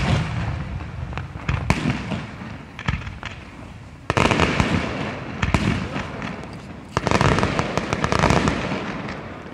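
Display fireworks going off: aerial shells bursting with sharp bangs over a bed of crackling stars. A heavy volley about four seconds in and another about seven seconds in are each followed by dense crackling.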